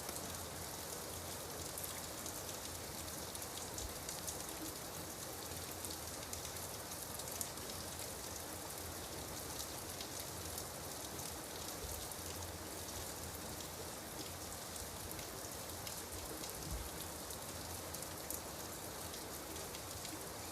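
Steady rain falling: a continuous hiss dotted with many small drop ticks.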